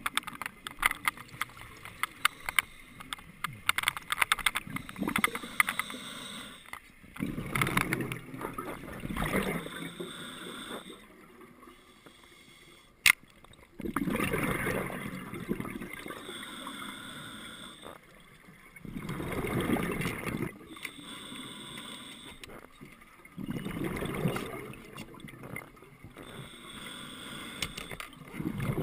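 Scuba diver breathing through a regulator underwater: a short hiss on each inhalation alternating with a louder bubbling rush on each exhalation, about every five seconds. One sharp click about thirteen seconds in, and a scatter of small clicks in the first few seconds.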